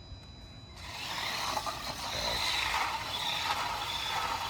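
Small electric 1:18-scale RC car running at speed: its motor and gearbox make a steady whirring rasp that starts about a second in.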